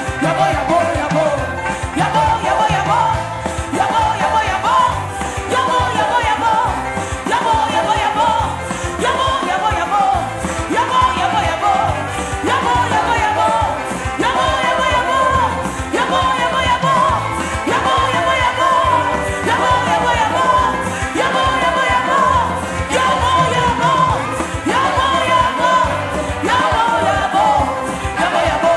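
Worship music: a voice singing a wavering melody over a band with a steady beat.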